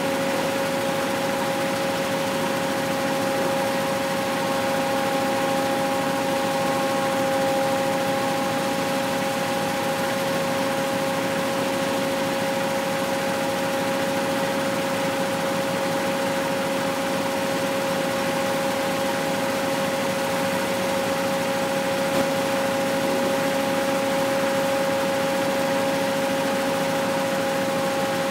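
Abaca twin-spindle decorticating machine running steadily, driven by a small engine, as abaca stalks are fed through its spinning spindles to strip out the fibre. It gives a constant mechanical hum with two steady high-pitched tones that hold at one pitch throughout.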